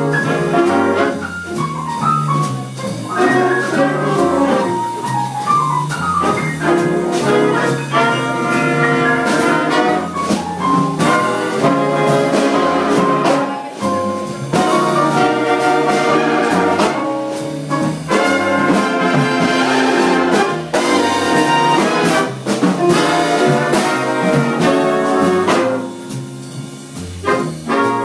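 Big band playing jazz live: the saxophone section and the trumpets and trombones play loud ensemble phrases over drums. The band eases off briefly near the end.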